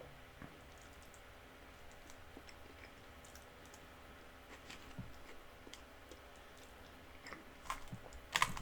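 Faint eating sounds: sparse soft clicks of chewing and of a fork or spoon on the plate, with a few sharper clicks near the end.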